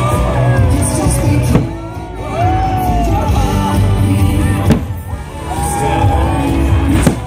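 Fireworks show soundtrack of orchestral music with singing, with three sharp fireworks bangs cutting through it about one and a half, four and a half, and seven seconds in.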